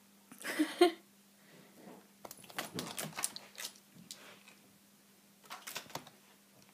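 A cat batting and pawing at a crinkly plastic chocolate-bar wrapper: short crackling rustles in three bouts, the first about half a second in and the loudest, the longest in the middle.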